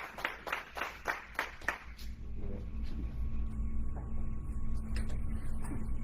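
A small group clapping in an even rhythm of about four claps a second, stopping about two seconds in. A low steady hum from the hall's sound system remains.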